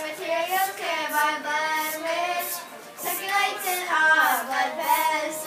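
Children singing together in held, sliding notes, with a short break a little before three seconds in.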